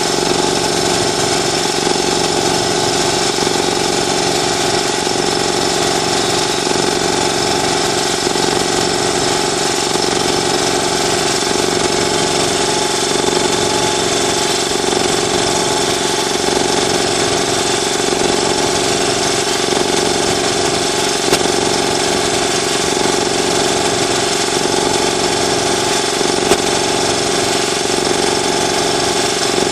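Ingersoll Rand TS4N5 80-gallon two-stage air compressor, driven by a 5 hp electric motor, running steadily as it fills the tank toward its 170 psi cut-off.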